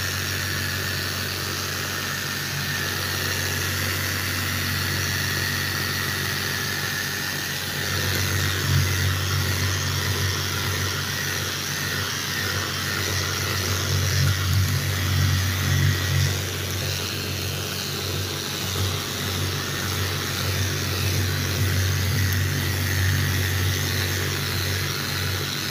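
Cordless rotary sander-polisher with a round sanding pad running steadily, the pad grinding across a wet countertop as a scratch is sanded out. Its hum gets louder and more uneven about eight seconds in, rising and falling as the pressure on the pad changes.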